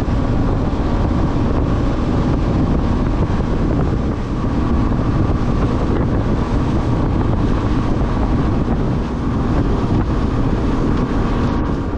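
Boat engine running steadily under way, with heavy wind noise on the microphone.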